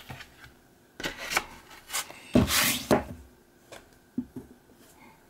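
Plastic DVD case and cardboard slipcover being handled: a few short rubbing, scraping sounds, the loudest a little past halfway as the case slides against the card, then a few light clicks.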